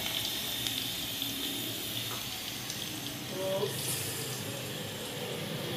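Pakoras frying in a pan of hot oil, sizzling steadily.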